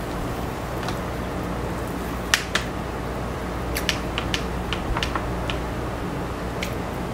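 Fried chicken being pulled apart by hand over aluminium foil and eaten: a scattered run of short, sharp clicks and crinkles, about ten in all, starting a couple of seconds in. A steady low hum runs underneath.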